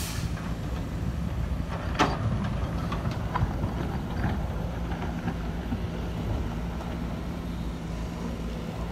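Sumitomo SH210 hydraulic excavator's diesel engine running steadily under load as the bucket digs and scrapes red laterite soil. One sharp clank comes about two seconds in, followed by a few lighter knocks.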